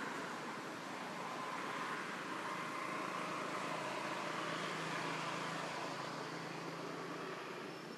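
A motor vehicle passing: a steady engine hum that swells to a peak about five seconds in and then fades.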